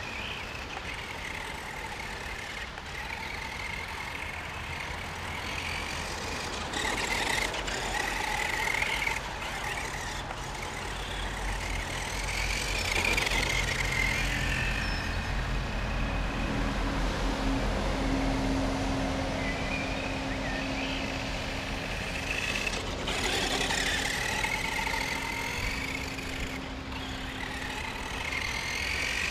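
Brushed electric motor and drivetrain of a Helion Dominus 10SC 1/10 short-course RC truck, whining in surges that rise and fall in pitch as it speeds up and slows down. A low steady hum runs beneath it through the middle stretch.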